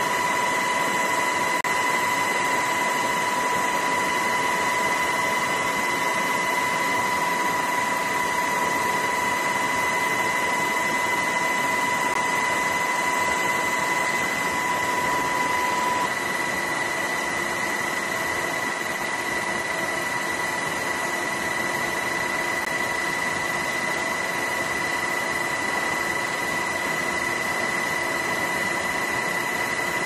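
Steady engine noise heard from inside the aircraft doing the filming: an even rush with a constant high whine. It drops slightly in level about halfway through.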